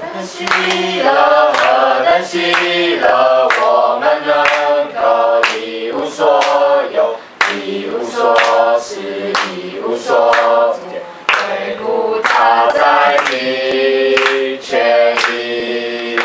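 A small group of teenagers singing a Christian hymn together, clapping their hands along with the song.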